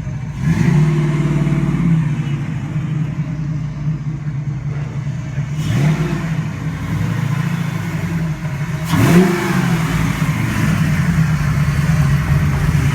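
Car engine running at idle and blipped three times, each rev a short rise and fall in pitch.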